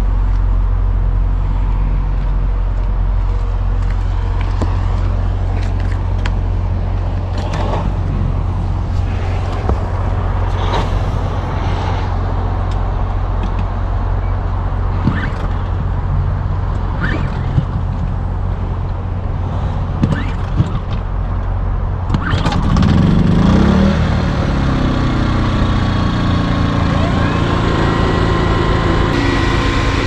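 Portable generator running with a steady low hum, with scattered knocks and clicks of handling. About 22 seconds in, a second machine spins up with a rising hum, and steady higher tones join after it.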